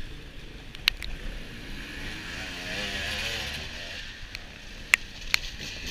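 Distant enduro motorcycle engines revving, the pitch wavering up and down around the middle, with a few sharp clicks about a second in and near the end.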